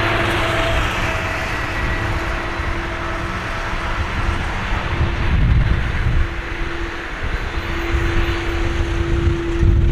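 Jet engines of an Airbus A330-200 at takeoff power: a loud, steady roar with a constant hum running through it. The high end fades after about a second as the aircraft draws away, and low rumble swells about halfway through and again near the end.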